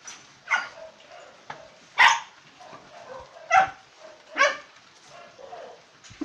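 Dogs barking at rats hidden in a stacked woodpile: four loud short barks spread a second or so apart, with quieter yips between them.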